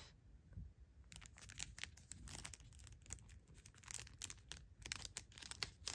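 Plastic wrapping of a photocard packet crinkling and tearing as it is cut open and the cards are pulled out: a run of short, irregular crackles.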